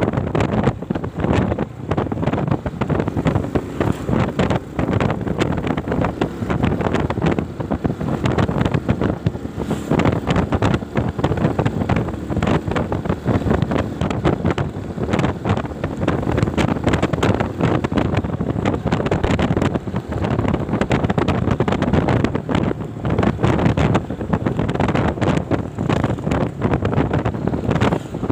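Wind buffeting the microphone, a loud rushing noise that surges and drops irregularly throughout.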